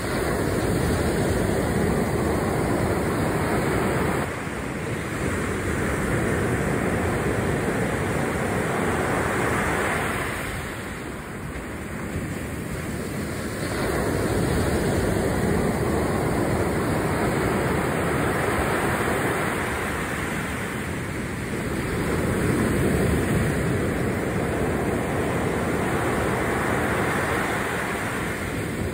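Ocean surf breaking and washing up a sandy beach, the foam rushing in and drawing back. The noise swells and eases four times.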